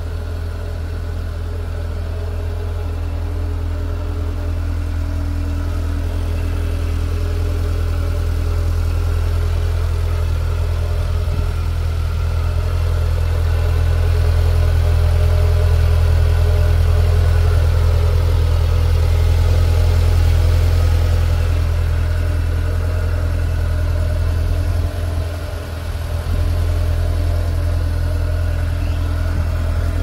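A Kawasaki Ridge side-by-side's 999 cc inline-four engine idling steadily with a deep, even hum. It grows a little louder toward the middle and drops briefly once near the end.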